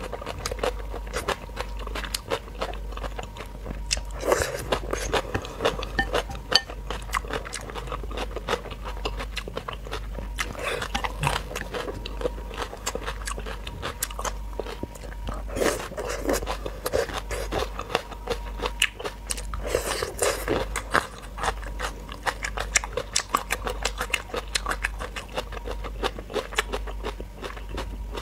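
Close-miked crunching and chewing of crisp raw cucumber and vegetable salad, with dense crisp crunches throughout and louder bursts of biting every few seconds.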